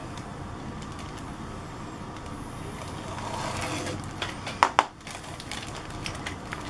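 Plastic kit bag holding a model sprue being handled and opened, with rustling and crinkling. Two sharp clicks come close together a little past halfway.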